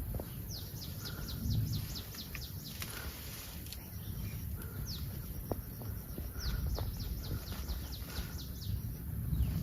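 A bird singing two quick runs of short, high, downward-sliding notes, about eight in each run, over a steady low rumble from the surroundings.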